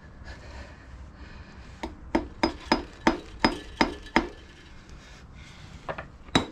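A hammer, used in place of a rubber mallet, tapping at the bevel drive box of a Moto Guzzi V7's shaft drive to work it loose. There are about eight sharp, ringing clinks at about three a second starting near two seconds in, then two more near the end.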